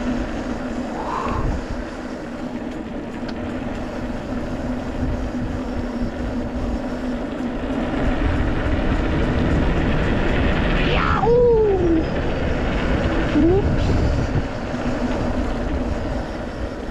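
Steady riding noise from a mountain bike on a trail: wind buffeting the microphone in a fluctuating low rumble, with a faint steady hum in the first half. About eleven seconds in, a short tone rises and falls.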